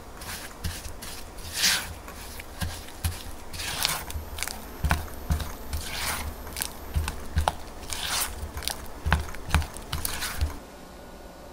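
Silicone spatula mixing granulated sugar into softened cream cheese in a glass bowl: irregular wet squishing and gritty scraping strokes with sharp clicks, stopping abruptly near the end.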